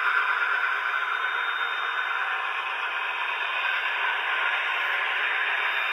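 Sound decoder speaker in a Dapol Class 68 model diesel locomotive playing its recorded diesel engine sound as the model runs past. The sound is thin and hissy, with no deep bass, and stays steady throughout.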